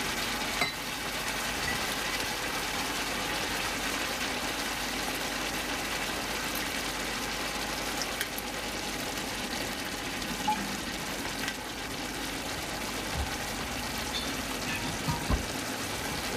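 Chicken breasts sizzling steadily in chicken broth in a large frying pan, with apple cider vinegar poured into the pan about halfway through.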